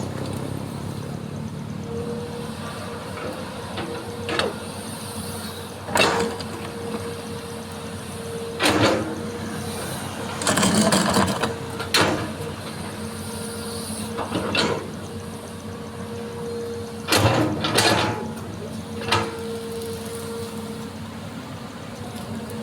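Hitachi excavator running, with a steady hum and a held whine, broken by irregular knocks and scrapes about ten times.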